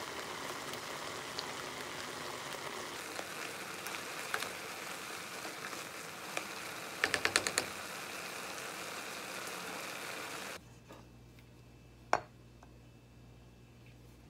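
Diced apples sizzling in a saucepan as they are stirred with a spoon, a steady hiss, with a quick run of about six sharp taps about seven seconds in. Past ten seconds the sizzle cuts off abruptly to a much quieter background, with one sharp click near twelve seconds.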